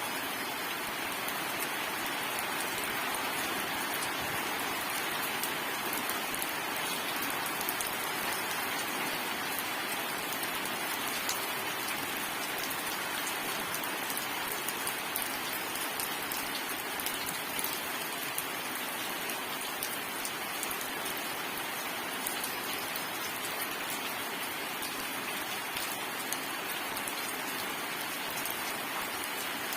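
Steady rain falling on surfaces, an even hiss of many drops with fine drop ticks and no thunder.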